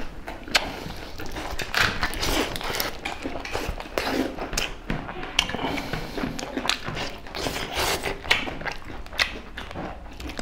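Two people eating chicken and rice by hand: irregular wet chewing, biting and lip-smacking clicks, with fingers working rice against the plates.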